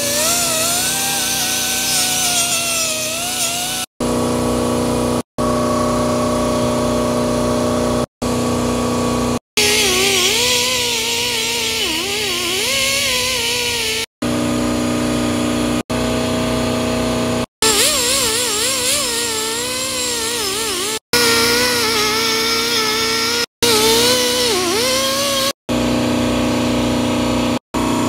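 A die grinder spinning a wire wheel against a cast-metal flange, cleaning the sealing face. Its whine wavers in pitch as the wheel is pressed onto the metal, with a steady hiss of wire brushing. Brief gaps break the sound every few seconds.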